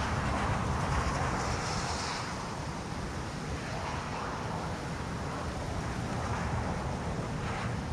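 Steady wind noise buffeting the microphone, rising and falling slightly with the gusts.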